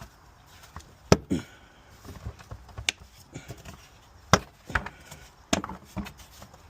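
About seven sharp knocks and clicks, irregularly spaced, of hand tools and parts being handled and set down; the loudest comes about a second in.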